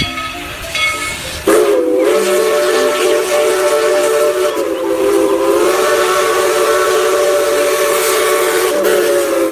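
Steam locomotive's whistle blowing one long blast, a chord of several notes that starts about a second and a half in and holds steady for about eight seconds. A hiss of steam runs underneath.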